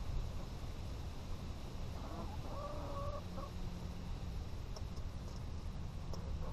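Hens clucking softly as they forage, with one drawn-out call about two to three seconds in, over a steady low rumble.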